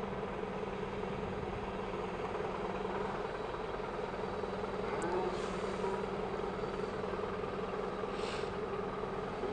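Mobile crane's diesel engine running steadily at a constant speed while it holds a load, with two short faint hisses about five and eight seconds in.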